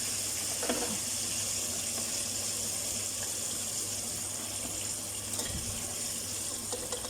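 Chicken pieces deep-frying in plenty of hot oil: a steady, high sizzling hiss.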